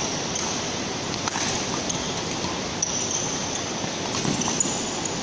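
Badminton rally: a handful of sharp racket-on-shuttlecock hits, roughly one a second, over a steady background hiss.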